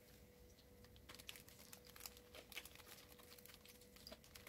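Faint crinkling and light scattered ticks of a coffee sachet being tipped and emptied into a ceramic mug, over a faint steady hum.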